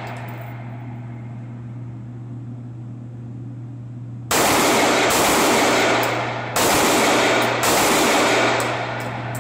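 Handgun shots in an indoor range: three shots, the first about four seconds in and the last two about a second apart, each followed by a long echo off the range walls. The echo of an earlier shot dies away at the start, and a steady low hum runs underneath.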